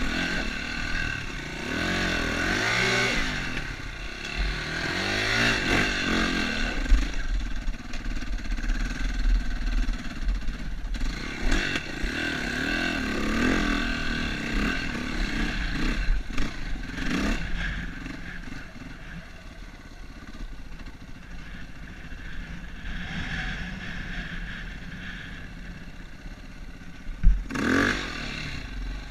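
KTM enduro motorcycle's four-stroke single-cylinder engine revving up and down under load on a rocky climb, its pitch rising and falling again and again, then running quieter and steadier in the second half. A sharp knock comes near the end.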